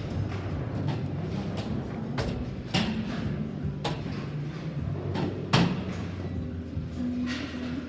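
Bowling alley din: a low steady rumble from the lanes under background music, with several sharp knocks of balls and pins, the loudest about five and a half seconds in.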